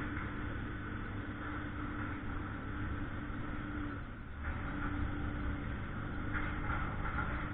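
Heavy engine running steadily with a low hum, dipping briefly about four seconds in before carrying on.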